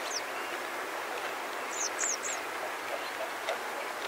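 Steady hiss of wind in grass, with small birds calling overhead: a short high chirp at the start and three quick falling chirps about two seconds in. Scattered faint clicks of warthogs cropping short grass.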